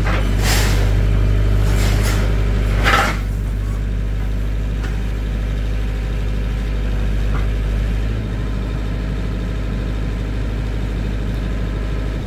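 A vehicle engine idling steadily, with a few short bursts of rushing noise over it in the first three seconds.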